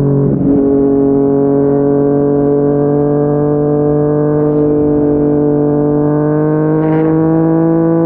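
Yamaha MT-09's inline-three engine pulling through a Yoshimura R55 slip-on exhaust at highway speed. The note breaks briefly about half a second in, then climbs slowly and steadily as the bike gathers speed.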